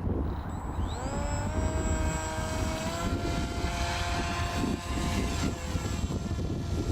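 Electric motor and propeller of a Bixler radio-controlled foam plane spinning up about a second in, its whine rising in pitch and then holding steady, with wind rumbling on the microphone.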